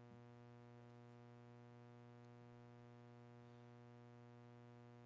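Near silence with a faint, steady low hum that does not change.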